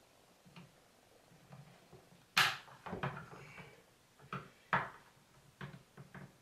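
A handful of short, sharp plastic clicks and taps as a small tool pries at a snap-on jumper clip on the back of a water ionizer. The loudest click comes about two and a half seconds in, and fainter ones follow.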